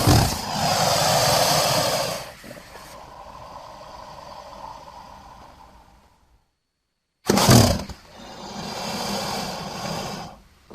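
Two monster roar sound effects for a crocodile-like creature. The first starts suddenly at the outset, is loud for about two seconds and then trails off more quietly for several seconds; after a short silence the second starts just as suddenly about seven seconds in and fades near the end.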